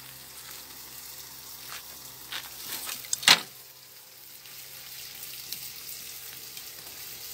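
Chicken pieces sizzling in an aluminium pot over a wood fire: a steady frying hiss with small scattered pops, and one sharp knock a little past three seconds in.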